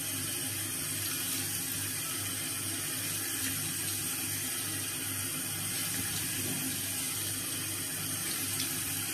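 Bathroom sink tap running steadily into the basin while a face is washed under it.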